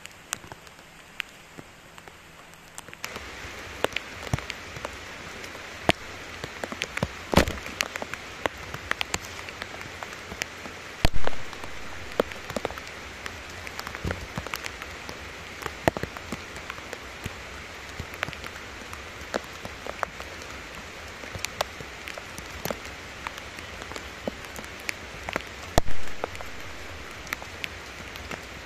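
Heavy rain falling on leaves and wet ground, a steady hiss with many sharp drops spattering close by; it gets louder about three seconds in. Two louder knocks stand out, one in the middle and one near the end.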